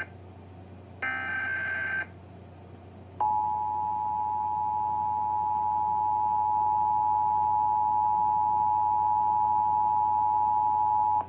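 Emergency Alert System test signal: about a second in, the last one-second burst of the screechy digital SAME header. About three seconds in, the two-tone attention signal begins, a steady harsh dual tone that holds for about eight seconds and then cuts off sharply.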